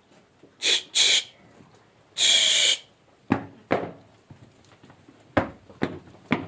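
Goats in a pen: two short sharp calls and a longer bleat, followed by scattered sharp knocks of hooves on a hard floor.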